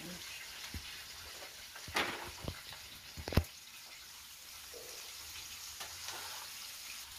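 Chopped onion and garlic sizzling in hot oil in an enamelled pan, with a few short sharp knocks, the loudest a little over three seconds in.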